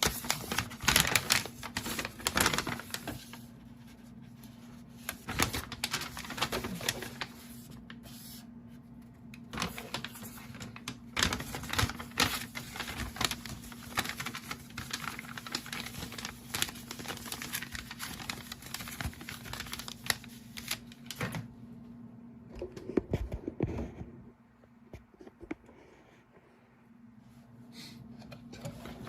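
Irregular clicks, taps and clatter of hands unpacking and handling plastic PC case fans and their packaging, busiest in the first half and quieter near the end, over a steady low hum.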